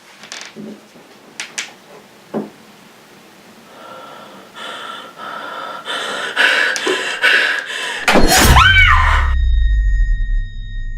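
A few knocks and bumps from a door, then a swelling, tense noise, then a woman's scream about eight seconds in. A deep low rumble starts with the scream, and held droning tones linger after it: a horror sting.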